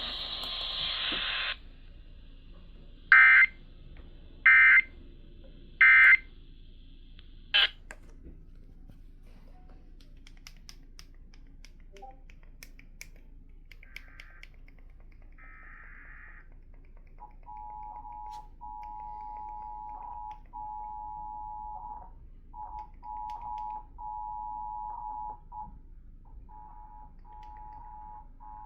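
Received over the radio, a hiss ends about a second in, then come three short bursts of Emergency Alert System SAME data tones, the end-of-message signal. After a quieter stretch with faint static, the EAS two-tone attention signal starts about 17 s in and keeps cutting out in brief dropouts.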